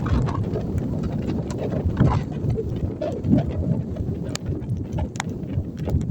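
Strong wind buffeting the microphone in a blizzard, with scattered small clicks and knocks over it.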